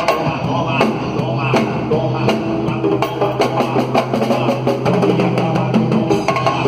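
Samba band music: drums and percussion playing a steady, driving beat over a sustained bass line.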